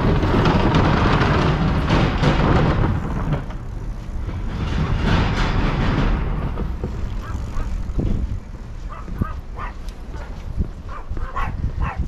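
Gusts of wind buffeting the microphone, in two long rushes. In the last few seconds a small dog yips several times in short, high calls.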